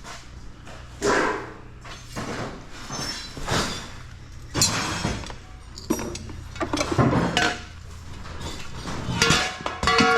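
Scrap metal being handled: pieces knocked, dropped and dragged against one another in irregular clanks and clatters, a few of them ringing on for a moment near the end.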